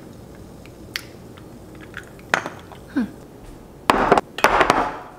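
Stainless steel and ceramic bowls knocking and clinking as they are set down on a table: a few light clicks, then a cluster of louder knocks and clattering near the end.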